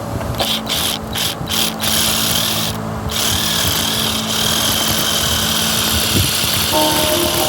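A power tool cutting wood, stopping and starting in short bursts at first, then running steadily.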